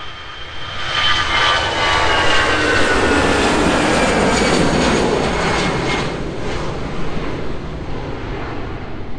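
Jet airliner taking off at full thrust and climbing away past the runway side. It is a loud rumble with a high whine that falls in pitch as the jet goes by. It builds about a second in and eases off over the last few seconds.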